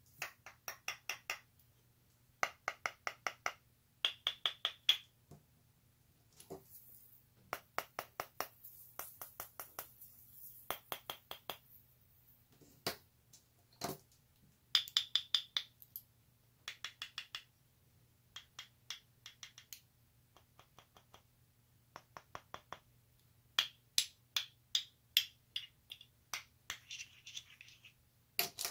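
Fingernails tapping and picking at a red tin ball container, in quick runs of sharp clicks with short pauses between them. There are occasional softer crinkly stretches of plastic wrap being handled.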